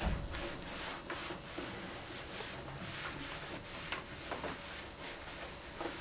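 A cloth rubbing and wiping over the plastic casing of a CRT computer monitor. There is a soft low thump at the start and a few light knocks and ticks from handling the monitor about four seconds in and near the end.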